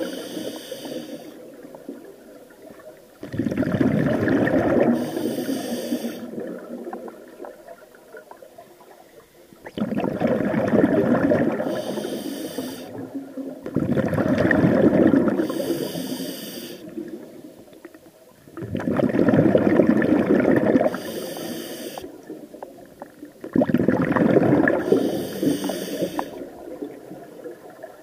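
A scuba diver breathing through a regulator underwater: a short hiss on each inhale, then a rushing burble of exhaled bubbles that starts sharply and fades. About five breaths, one every four to five seconds.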